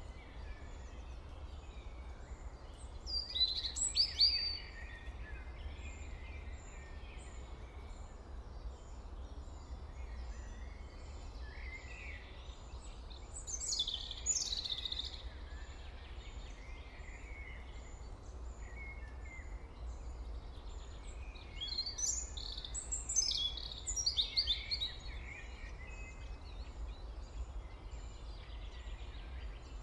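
Birds chirping in three short bouts of quick high calls, over a steady low hum.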